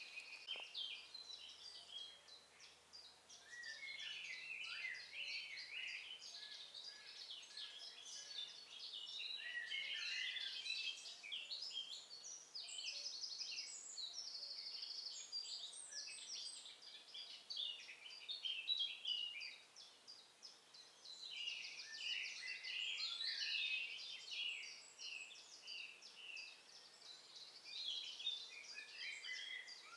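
Several songbirds singing at once, a dense run of overlapping chirps and trills, with a brief lull about two-thirds of the way through.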